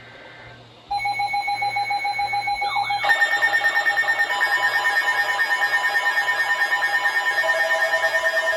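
Emergency alert alarm tones beeping: a rapidly pulsing alarm tone starts suddenly about a second in. About three seconds in, more alarm tones at other pitches join, all beeping together.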